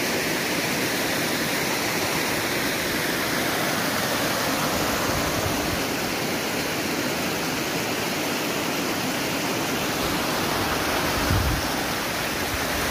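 Mountain stream rushing and splashing over rocks in a small waterfall, a steady rush of water. A brief low thump near the end.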